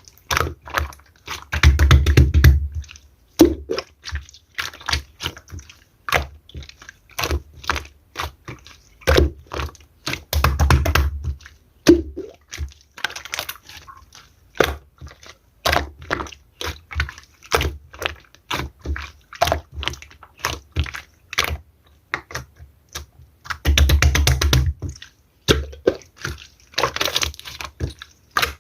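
Clear slime being played with by hand: a steady run of crisp clicks and pops, with a few denser, squelchier stretches of crackling as it is pressed and folded.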